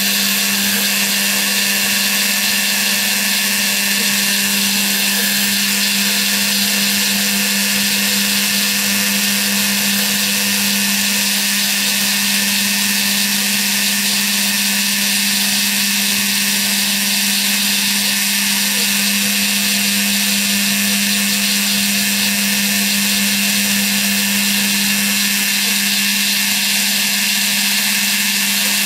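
Spindle motor of a hobby CNC router running steadily at high speed, its bit milling a pocket in a block of foam: a constant hum with a hiss above it.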